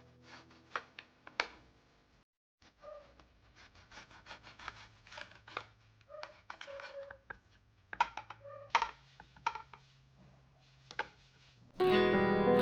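Quiet handling sounds: scattered light clicks, taps and scratches of small objects being moved about. Plucked-guitar background music comes in loudly near the end.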